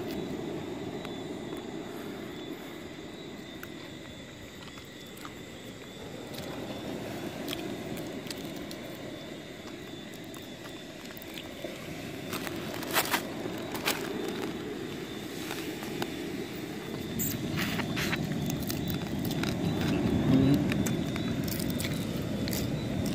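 Steady low outdoor rumble, with a few sharp crackles and clicks a little over halfway through and again a few seconds later.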